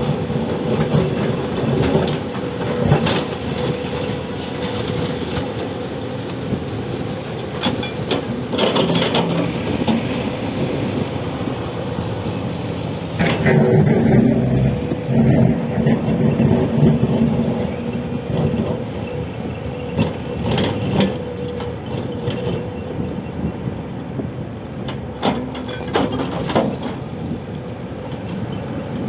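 Diesel engine of a backhoe loader working steadily at a loud, even level, with sharp knocks and clatter every few seconds as it digs and loads soil.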